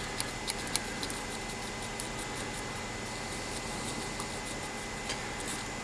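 Soldering iron working on a circuit board: a few faint clicks and scratches of the tip, mostly in the first second, over a steady faint high whine.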